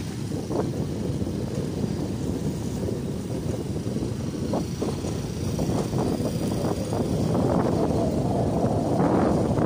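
Low, steady rumble of wind buffeting the microphone while moving along the road, growing louder near the end.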